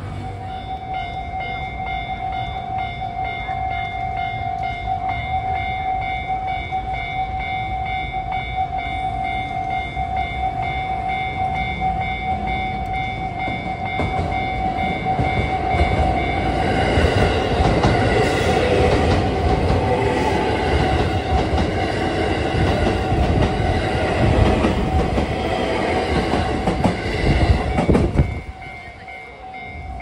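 Japanese level-crossing bell ringing steadily, joined about halfway through by a JR West 281 series Haruka limited express train passing over the crossing, its wheel and running noise growing loud. The train noise cuts off suddenly near the end while the crossing bell keeps ringing.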